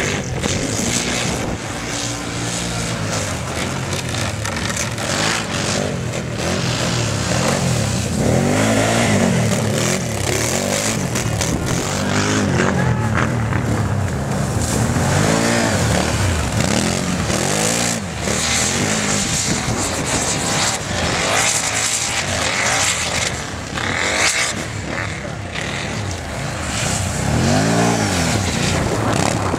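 Several racing ATV engines revving hard, their pitches rising and falling over and over as the quads accelerate, shift and pass one another.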